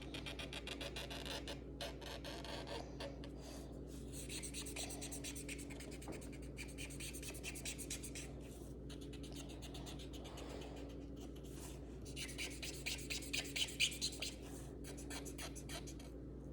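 Colouring on paper with rapid back-and-forth scribbling strokes, several a second, in runs broken by short pauses, loudest in a run near the end.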